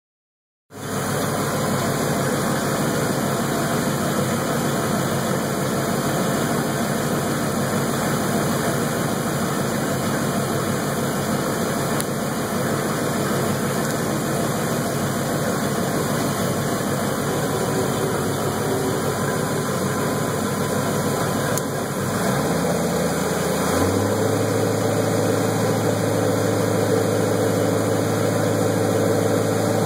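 Ford 351 Windsor V8 inboard marine engine with throttle-body fuel injection, running steadily at low speed. Near the end its note steps up twice and gets a little louder.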